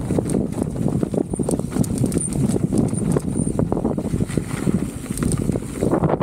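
Specialized Status 160 mountain bike clattering over rough trail: a dense, irregular run of knocks and rattles from tyres, frame and drivetrain, over a rushing noise.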